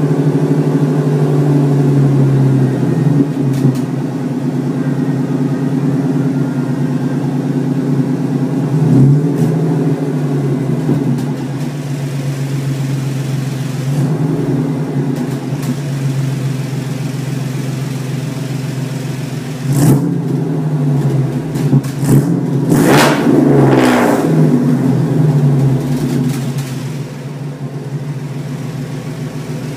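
Ford Mustang 3.8-litre V6 idling just after start-up, its idle settling slightly lower a couple of seconds in. It gives a short throttle blip about nine seconds in, then several quick revs that rise and fall in the last third.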